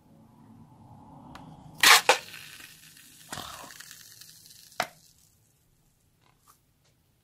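Crunchy foam slime crackling and crunching as a rubber balloon is pressed and rubbed into it. Two sharp, loud cracks come about two seconds in, then more crackling and another sharp crack near five seconds.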